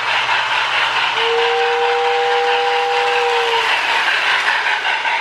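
Marx O-gauge toy steam train running on its track with the Sound O Power tender's electronic sound unit giving a steady hiss, and a two-note whistle held for about two and a half seconds in the middle.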